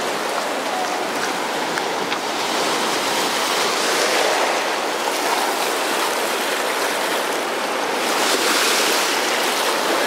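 Shallow ocean surf washing and foaming close by: a steady hiss of rushing water that swells twice as waves come in.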